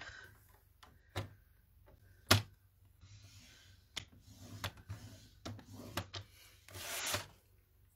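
Tabletop paper trimmer with its blade carriage drawn along the track over a sheet of card stock: several sharp clicks and knocks of the plastic trimmer and card, the loudest about two seconds in, and a brief swish of paper near the end.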